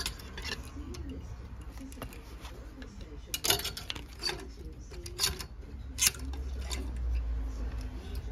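Wooden clothes hangers clacking against each other on a clothes rail as they are pushed aside one by one: sharp clicks at irregular intervals, about one a second. A low rumble joins near the end.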